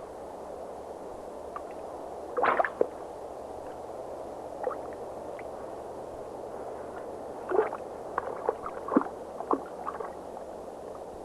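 Underwater ambience: a steady hiss with scattered gurgling clicks and pops, a cluster about two and a half seconds in and several more from about seven and a half seconds on.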